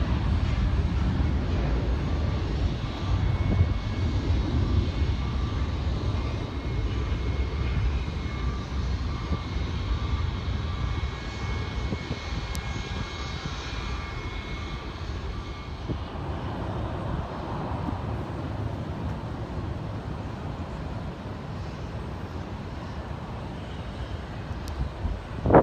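Jet airliner's engines rumbling as it climbs away after takeoff, the sound slowly fading as it gets farther off, with a faint steady whine over the rumble in the first half.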